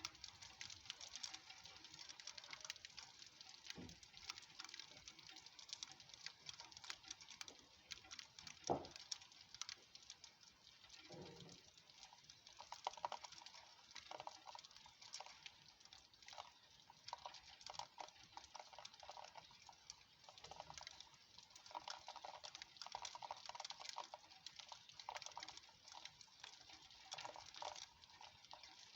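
Light rain starting to fall: soft patter of scattered drops ticking on surfaces, with a few dull knocks, the sharpest about nine seconds in.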